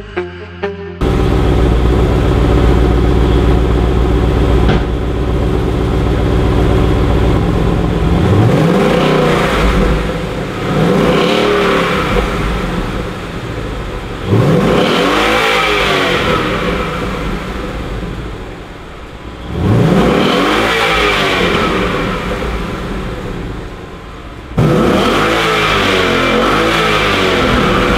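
2017 Ford Mustang GT's 5.0 V8 on its factory stock exhaust. It idles steadily for several seconds, then is revved at standstill about five times, each rev rising in pitch and falling back to idle.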